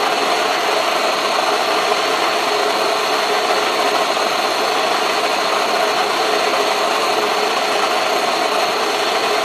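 Jeweler's soldering torch flame burning with a steady hiss, heating fluxed metal to melt pieces of easy solder.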